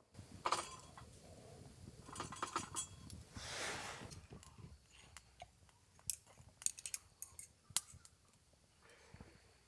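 Gear being handled by hand: scattered small clicks and knocks of hard objects, with a louder rustle about three and a half seconds in.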